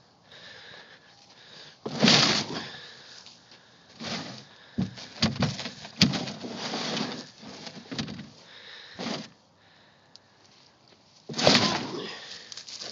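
A bull nosing and shoving at a round stock water tank: irregular bursts of rough scraping and blowing noise, with a sharp knock about six seconds in.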